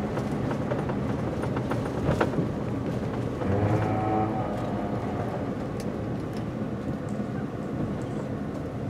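Truck engine and road noise heard from inside the cab: a steady low rumble, with a short swell in engine tone about three and a half seconds in.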